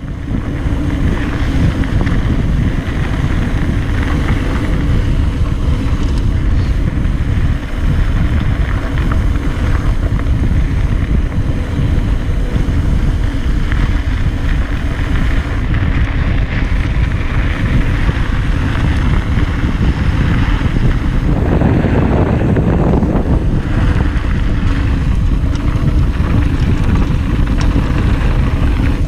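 Heavy wind buffeting on an action camera's microphone during a fast mountain-bike descent: a steady low rumble.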